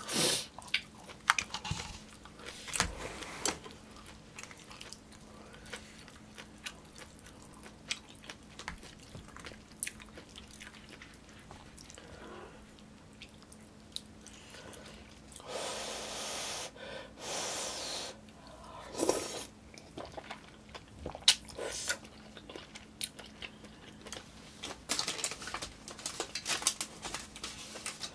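Close-miked eating sounds: chewing and slurping hot yukgaejang (spicy beef soup) with noodles and meat, with sharp clicks of chopsticks and spoon against the bowl, and a longer noisy slurp a little past halfway.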